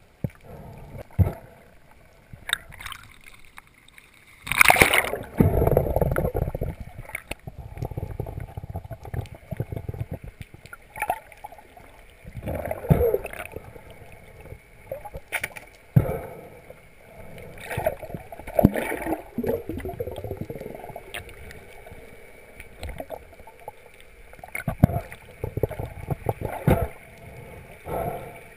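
Water noise heard through a submerged diving camera: irregular swishing and gurgling as the diver swims, with scattered knocks and a loud rush about five seconds in.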